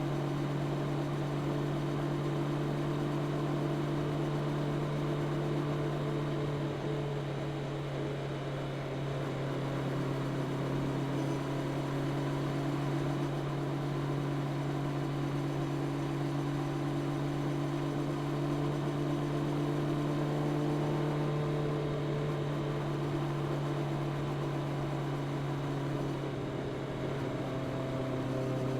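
Honda CB650R's inline-four engine through its stock exhaust, running at a steady cruising speed while riding, with small shifts in engine speed about seven seconds in and near the end.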